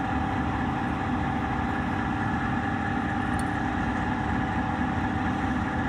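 Laminar flow cabinet's fans running: a steady rushing drone with a constant hum.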